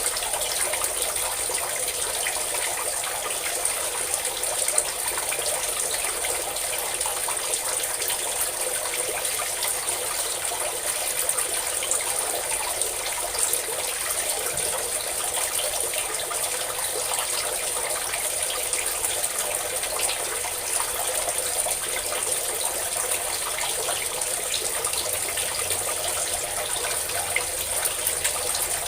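A stream of water pouring and splashing, steady and unbroken with no pauses.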